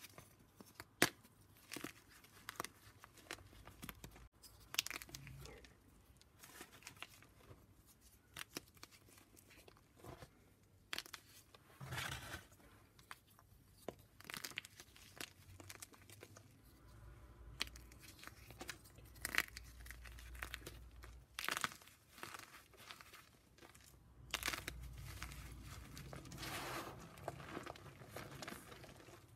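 Gym chalk being broken up at close range: irregular crackles and crunches, with a few longer scraping, crumbling stretches.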